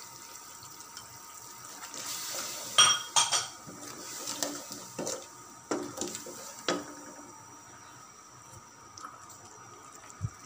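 Long wooden spoon stirring a wet spice masala in an aluminium pressure cooker, scraping and knocking against the pot with a string of sharp knocks, most of them in the middle of the stretch.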